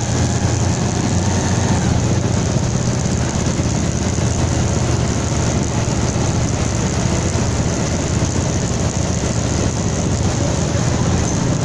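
Bajaj Pulsar 220's single-cylinder engine running steadily at low road speed, a constant low hum with no revving.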